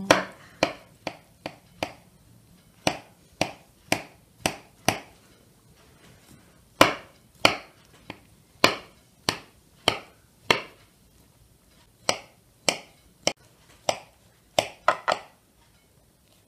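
A knife cutting a layered beetroot salad into wedges in a glass dish, the blade knocking against the dish in sharp clicks about two a second, stopping near the end.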